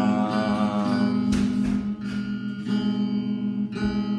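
Strummed acoustic guitar playing a repeating chord pattern, with a sung line ending about a second in and a single sharp hit just after.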